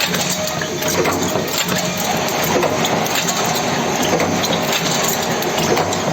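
Cold forging machine running steadily as it makes M6×38 stainless steel flange screws: a dense mechanical clatter packed with sharp metallic clicks and clinks over a faint steady hum.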